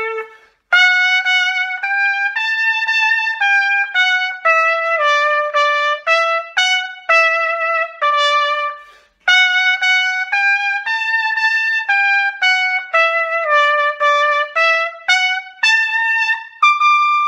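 Piccolo trumpet playing a solo tune: a melody of short, separate notes in two phrases, with brief pauses for breath just under a second in and about nine seconds in, ending on a longer held note.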